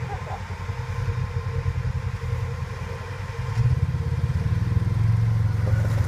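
Polaris RZR 1000 side-by-side's twin-cylinder engine running at low revs while crawling up a rock ledge; about three and a half seconds in the throttle opens and the engine gets louder and stays up.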